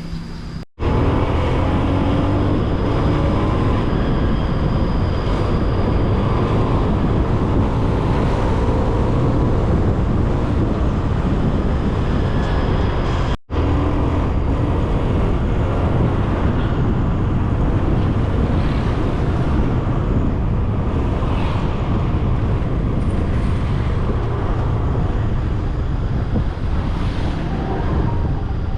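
Riding a Honda Scoopy scooter: a loud, steady rush of wind and road noise with the small scooter engine running underneath. The sound cuts out briefly twice, about a second in and again about halfway through.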